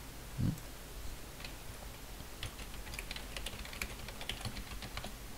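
Typing on a computer keyboard: a quick run of key clicks starting about two and a half seconds in. A single short low thud about half a second in.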